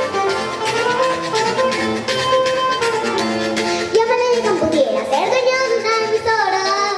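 Carranga string ensemble of acoustic guitar and tiples playing the song live. A voice joins over the strings about four seconds in.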